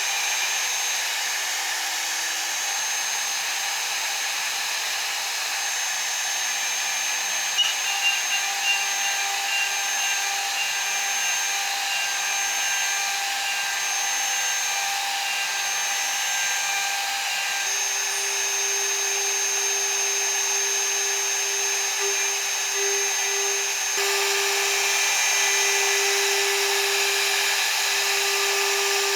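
CNC milling spindle running with a steady high whine and the hiss of the cutter at work. There is a short run of clicks about eight seconds in, and the whine changes pitch and level about two-thirds of the way through.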